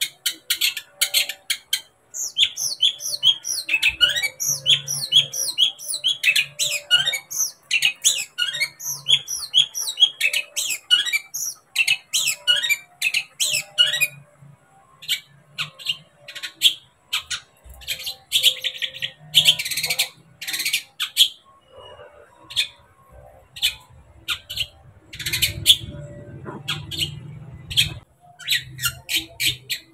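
Long-tailed shrike (cendet) singing: a fast, varied run of sharp chirps and downslurred notes that breaks off about halfway. It is followed by sparser single calls and a brief harsh, rasping burst.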